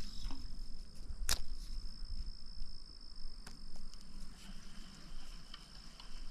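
Insects singing a steady, high-pitched drone, joined by a second, lower steady note about four and a half seconds in. A single sharp click comes a little over a second in, and a few faint ticks follow.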